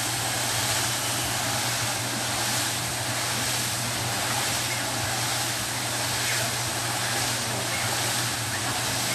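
A small camera drone's propellers and motors whirring steadily: a constant low hum under an even hiss, with no change in speed.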